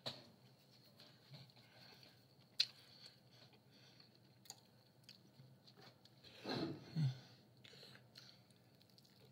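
Close-up chewing of pizza: faint wet mouth clicks and smacks. About six and a half seconds in there is one louder, brief mouth sound with a low falling hum.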